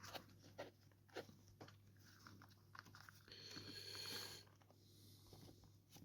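Faint small clicks and light scraping of a handheld GPS's plastic case parts being handled and fitted together, with a longer rubbing sound about three to four seconds in.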